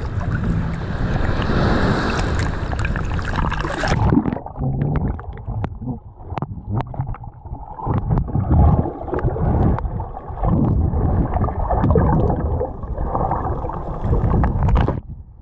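Gulf surf washing and splashing around a wading swimmer for about four seconds, then the sound turns suddenly muffled as it is heard from under the water: a low rumble and gurgling with scattered clicks and knocks.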